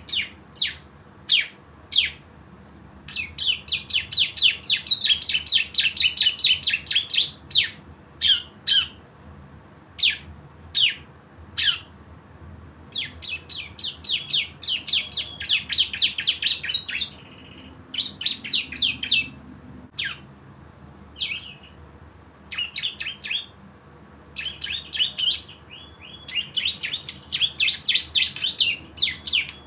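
Bar-winged prinia (ciblek) singing: sharp high chirps, some single and spaced out, others run together in fast rattling trills of several seconds, the 'ngebren' song.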